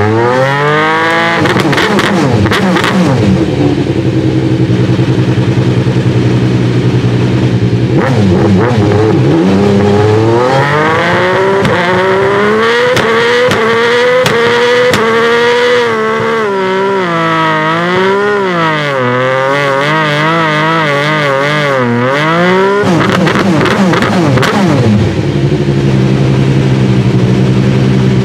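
Alfa Romeo 155 V6 Ti race car's 2.5-litre V6 running while stationary during its warm-up. It comes down off a blip of the throttle to a lumpy idle. From about ten seconds in it is held at raised revs for some twelve seconds, the pitch wavering up and down, then drops back to idle near the end.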